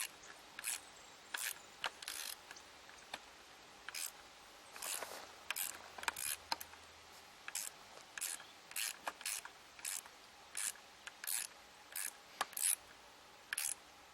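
Irregular clicks, rattles and short scrapes of aluminium mast sections and plastic fittings being handled and pushed together during hand assembly of a kayak sail mast.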